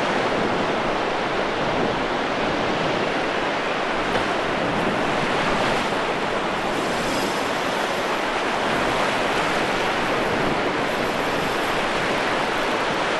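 Ocean surf breaking on the reef and washing up the sand, a steady wash of noise.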